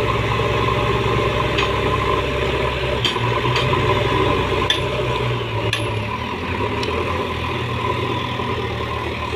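JCB backhoe loader's diesel engine running, its note shifting lower about three seconds in and again about six seconds in, with a few sharp metallic clinks and rattles.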